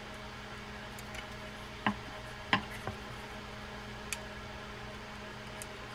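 Four light metal clicks, spread over about two seconds, from a screwdriver working the line guide carrier onto the worm gear shaft of a Penn Peer 209 levelwind reel as its pawl is eased into the groove. A faint steady hum runs underneath.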